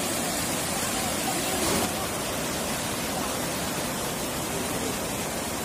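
Floodwater rushing over a low overflowing dam in a steady, even roar of white water.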